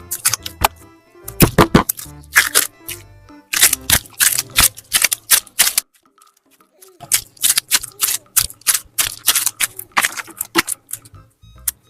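Rapid sticky clicks and pops of slime being squeezed and worked by hand, several a second, pausing briefly about halfway through, over soft background music.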